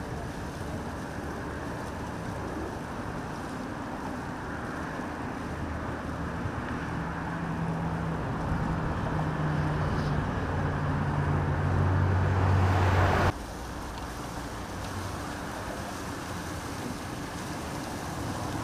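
Steady traffic rumble, with a motor vehicle's engine hum growing louder from about six seconds in and cutting off suddenly about two-thirds of the way through, after which the steady rumble goes on.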